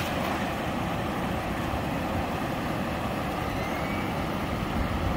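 Steady rushing of river water, an even noise with a low rumble underneath.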